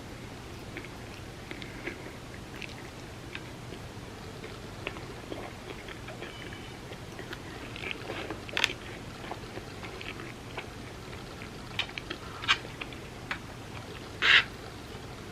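A person chewing and biting food close to the microphone, with small wet mouth clicks throughout. A few louder bites come about halfway through, and the loudest, short one comes near the end.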